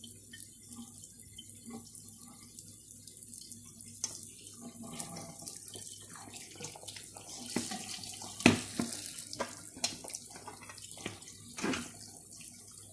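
Cold tap water running onto a whole raw chicken in a stainless steel colander, with scattered splashes and knocks as the bird is handled; the loudest knock comes about eight and a half seconds in.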